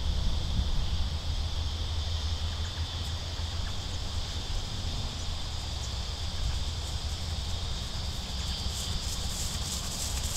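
Wind rumbling on the microphone over a steady high insect drone, with no clear hoofbeats.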